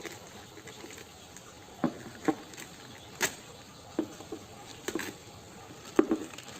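About six short, light clicks and knocks at irregular intervals over a faint steady background hiss.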